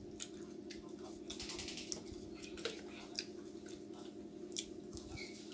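Close mouth sounds of a man eating chicken and samosa by hand: wet chewing and lip-smacking with sharp clicks every second or so, and a brief crackly stretch about a second and a half in.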